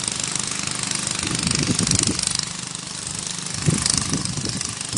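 Small engine running steadily with a fast, even knocking beat.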